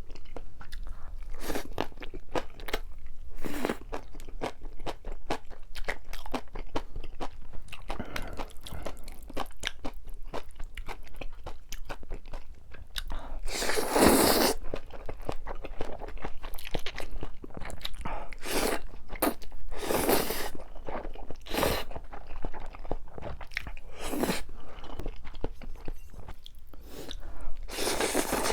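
Close-miked eating sounds: a person chewing and crunching through mouthfuls of Chapagetti black-bean noodles and spicy green onion kimchi, with a steady run of small wet crackles. Several louder bursts come around the halfway point and near the end.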